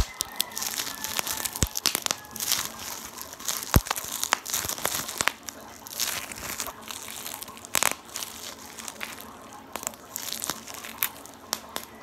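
Clear plastic bubble-wrap packaging crinkled and crumpled by hand, an irregular crackling with a few sharp clicks.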